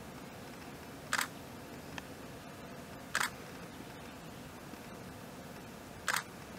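Three short, sharp clicks about a second, three seconds and six seconds in, each a quick double snap, over a steady faint hiss.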